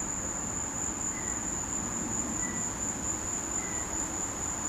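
Insects trilling outdoors in one steady, unbroken high-pitched drone, with a faint short chirp every second or so.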